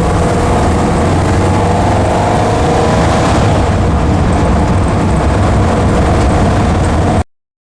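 1966 Porsche 912's air-cooled flat-four engine driving the car on the road, its pitch rising for a couple of seconds as it accelerates, over steady road noise. The sound cuts off suddenly near the end.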